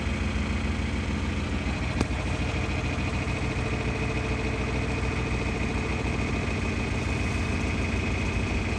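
Tractor engine running steadily on the road, heard from inside the cab, with a single sharp click about two seconds in.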